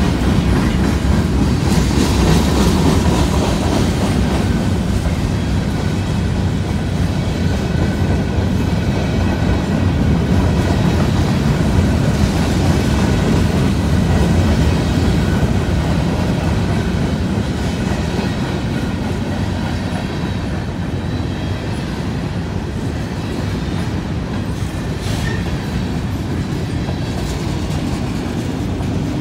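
Freight cars of a long mixed freight train rolling past at steady speed: a continuous rumble of steel wheels on the rails, a little quieter in the second half.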